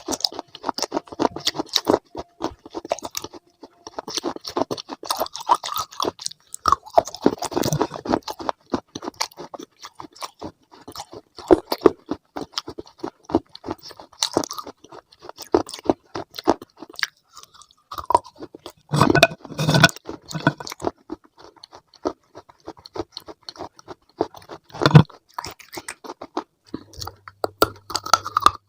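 Close-miked chewing of crunchy food: a dense run of crisp crunches, with a few heavier bites standing out about two-thirds of the way through.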